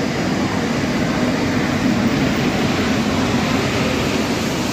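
A locomotive-hauled passenger train pulls in alongside the platform, with steady noise from the locomotive and from wheels rolling on the rails as the coaches pass close by.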